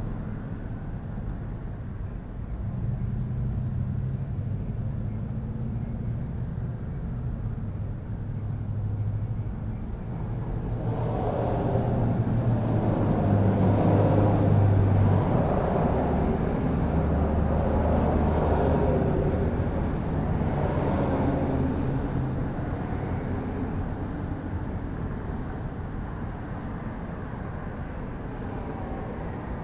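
A motor vehicle engine running, a steady low hum that grows louder about a third of the way in, drops in pitch around the middle and eases off toward the end.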